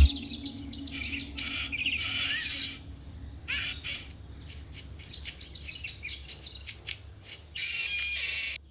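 Birds chirping and twittering in quick clusters of short calls, which stop abruptly near the end.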